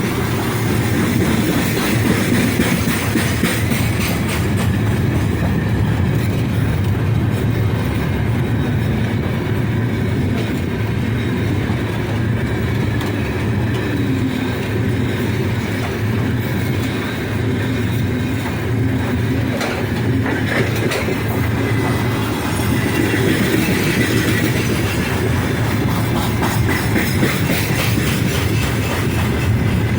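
Freight train wagons rolling past, wheels clacking over the rail joints over a steady loud rumble.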